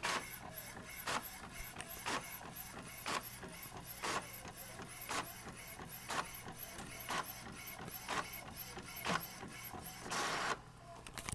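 Desktop inkjet printer printing a page. The print head shuttles with a click about once a second and softer ticks in between, and there is a longer whirring burst near the end.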